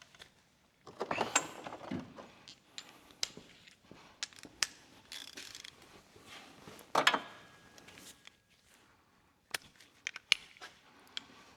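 Hand tools working on metal parts: scattered metallic clicks and clinks, with a louder rattling clatter about a second in and another about seven seconds in.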